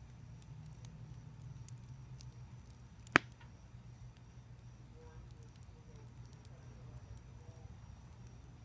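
Glowing embers of a burnt-down tube fire crackling faintly with scattered small ticks, and one sharp, loud pop about three seconds in. A steady low rumble runs underneath, with a faint steady high tone.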